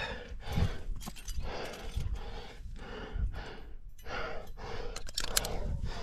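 A rock climber breathing hard while climbing, with quick, forceful breaths about every half second to a second over a low rumble.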